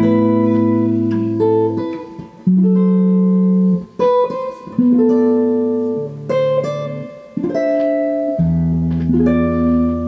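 Semi-hollow electric guitar playing a slow chord-melody tune: extended jazz chords such as a minor-seventh flat-five and an altered dominant, each struck and left ringing with a melody line on top, a new chord about every one to two seconds.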